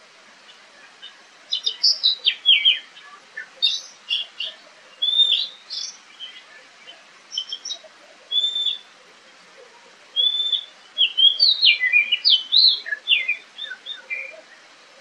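Oriental magpie-robin singing: rapid phrases of clear whistled notes and quick falling sweeps. The song comes in two bursts, the first starting about a second and a half in and the second about ten seconds in.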